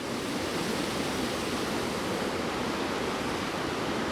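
Creek water rushing steadily down a natural rock water slide, a loud, even roar of falling water.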